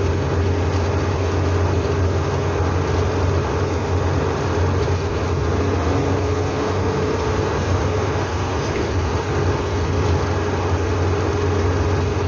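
Hillman Super Minx cruising at a steady speed, heard from inside the cabin: the four-cylinder engine's steady low drone, a constant hum above it, and the rush of tyres and wind.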